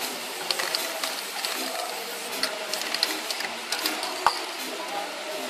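Aerosol spray-paint cans being worked: short hisses of spray and quick rattling clicks of a can's mixing ball as it is shaken, with a sharper knock about four seconds in.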